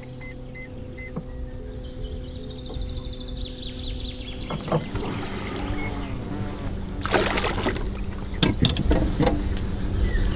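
A hooked fish splashing and thrashing at the surface beside a boat as it is reeled in and lifted out on a spinning rod. The splashes come in loud bursts from about halfway, the biggest near seven seconds and again near nine. The boat's motor hums steadily underneath.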